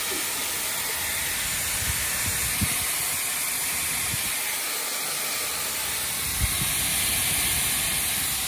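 Dyson Airwrap hair styler running, its airflow a steady high hiss, with a few light knocks from handling. It is running on sagging mains voltage of about 188 V, at which it has been cutting out.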